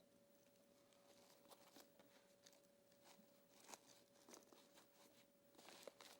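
Near silence: faint room tone with a steady low hum and a few scattered faint ticks.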